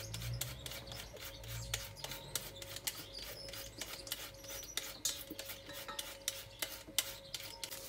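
Raw cassava root being shredded on a plastic papaya shredder: quick repeated rasping scrapes, several strokes a second, as fine shreds are cut from the peeled root.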